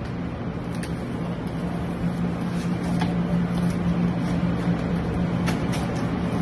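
Steady hum of pizza-shop kitchen machinery, with a few light clicks as a cardboard pizza box is folded shut.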